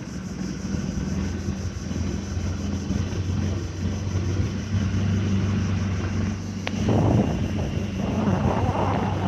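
A small boat's engine running at a steady speed while under way, a constant low drone. About seven seconds in, a louder rushing noise joins it.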